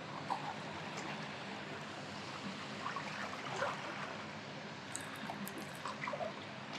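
Steady rush of flowing river water, with a few faint clicks about five seconds in.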